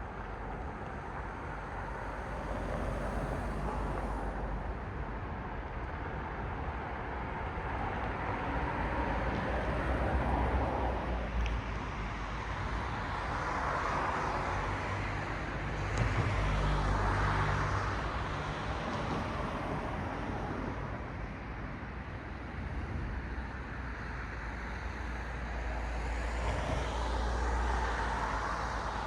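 Road traffic: cars passing one after another, tyre and engine noise swelling and fading in waves with a steady low rumble underneath.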